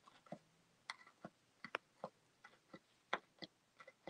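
Push pin stabbing through a paper pattern into a stretched canvas: faint, uneven clicks, about three a second, as the design is pierced into pre-holes for back stitching.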